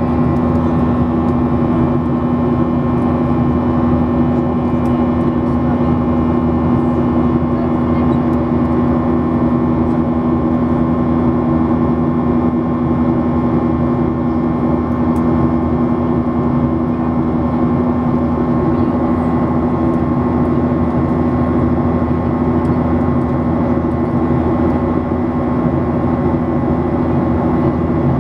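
Boeing 737-800 cabin noise in the climb: the CFM56-7B turbofans running steadily at climb power under the rush of airflow, a constant hum with a few steady tones.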